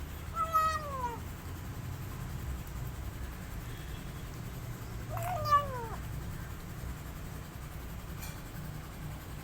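A young kitten meowing twice, a few seconds apart, each call sliding down in pitch.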